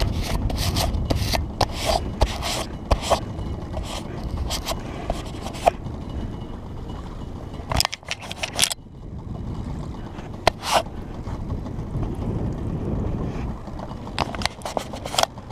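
Handling noise from a wet action camera being wiped dry by hand and cloth: rubbing and scraping on the housing with many sharp clicks and knocks, over a low rumble.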